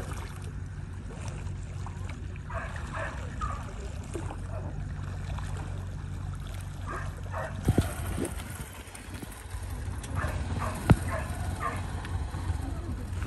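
Steady low hum of a docked ferry's engines running, with a few sharp knocks in the second half.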